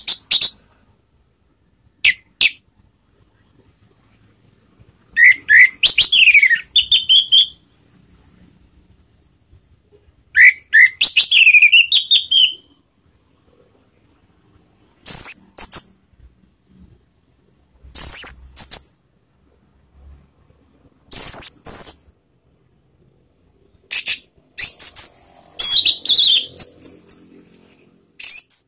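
Orange-headed thrush singing: about eight loud, high-pitched bursts of song, some with notes sliding up and down, separated by pauses of one to three seconds.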